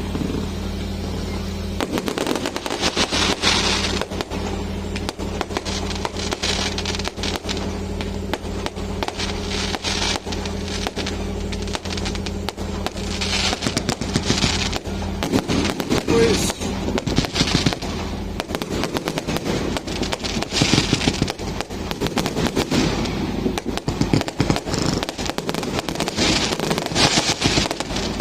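Firecrackers and fireworks going off without a break: dense rapid cracking, with crackling swells every second or two. A steady low hum lies underneath for about the first half.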